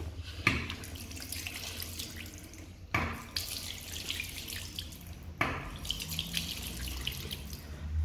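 Push-top self-closing tap on a 1960s Armitage Shanks basin pressed three times, about every two and a half seconds. Each press sets off a sudden gush of water splashing into the basin that fades as the tap closes itself, leaving drips.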